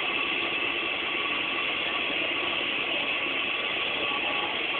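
Large bonfire burning with a steady, dense crackling.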